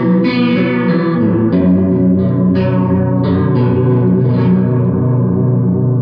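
Electric guitar strumming ringing chords through a home-built copy of the Electro-Harmonix Small Clone chorus pedal, played out of a Marshall speaker cabinet. The chords are re-struck every half second to a second, with a chord change about a second and a half in.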